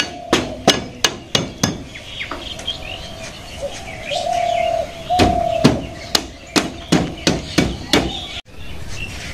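Sharp knocks of a dao (machete) blade used as a hammer on bamboo battens of a woven bamboo wall, about three blows a second in two runs with a pause between them. Birds chirp in the background.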